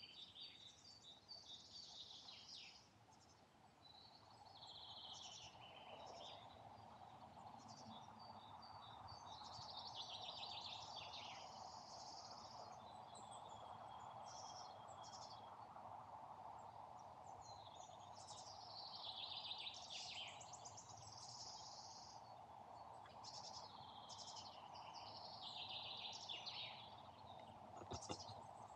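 Faint woodland birdsong: several songbirds singing short, overlapping chirping phrases over a steady faint background hiss. There is a single sharp click near the end.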